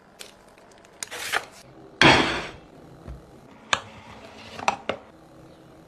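A large kitchen knife cutting through a crunchy chocolate-and-nut bar. There is a loud scraping crunch about two seconds in, then a few sharp clicks of the blade near the end.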